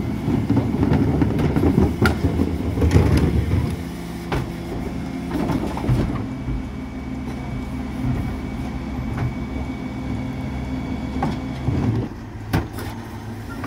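Dennis Elite 6 refuse truck with a Terberg bin lift at work. A loud rattling rumble for the first few seconds, then the truck settles to a steady running hum with a few sharp knocks and clicks.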